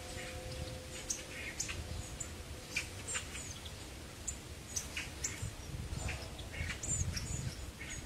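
Hawfinches giving short, sharp, high-pitched call notes, about a dozen scattered irregularly, over a low background rumble.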